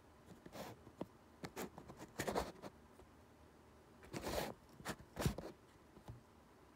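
Short, irregular scrapes and clicks, with two busier clusters about two and four seconds in and the loudest near five seconds, as a racket string is pulled taut to about 45 pounds with an EasyStringer manual tension head.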